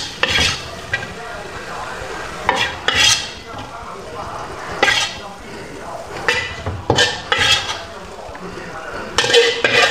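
Metal spatula scraping and clinking against a steel wok as fried tofu is scooped out onto a plate, in a string of short, irregular strokes every second or two.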